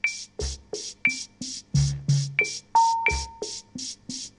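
Drum-machine rhythm: steady noisy high ticks about three a second, with low bass-drum hits and short pitched clicks, and one longer held tone about three seconds in.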